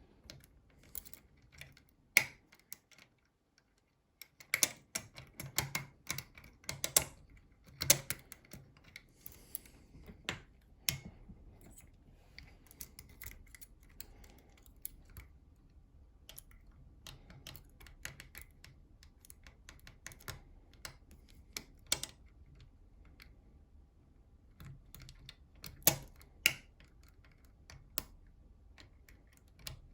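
Irregular light metallic clicks and taps of tools working a NATO Mersey 10-lever lock, with a brief silent gap a few seconds in.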